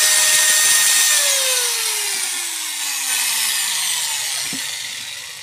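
Bosch 6-100 angle grinder running with a steady high whine, then switched off about a second in and winding down, its pitch falling and fading over about three seconds. A test run after fitting new 607 and 608 bearings and a new set of carbon brushes.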